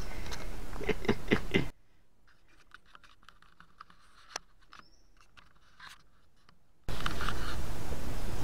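Handling noise from a handheld camera: a few knocks and rustles over the outdoor background, then the sound drops off abruptly to faint scratching and ticking as the camera rubs against clothing, and the outdoor background cuts back in near the end.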